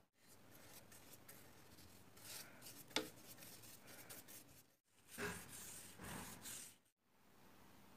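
Faint scratchy rubbing of a bristle brush, dipped in a tin of finish and brushed onto oak, with a sharp tap about three seconds in. The sound breaks off briefly twice.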